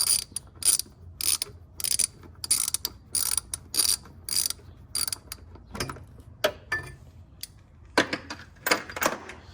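Socket ratchet on a long extension backing out a 17mm bolt: short runs of pawl clicks with each back-swing, nearly two a second, then a few slower, louder knocks near the end.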